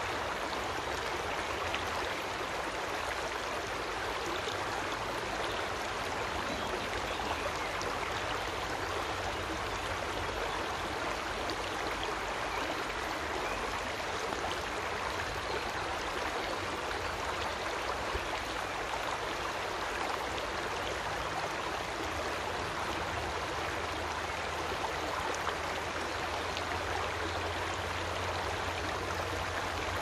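Creek water running in a steady, even rush.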